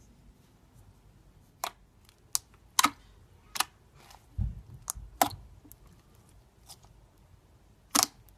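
Glossy red jelly slime being poked by fingertips, giving a string of sharp, irregular popping clicks as trapped air pockets burst, some in quick pairs. There is a duller, softer squish about four and a half seconds in.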